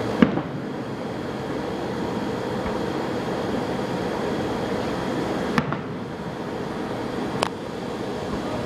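Fireworks exploding: three sharp bangs, the loudest right at the start and two more about five and a half and seven and a half seconds in, over a steady background rumble.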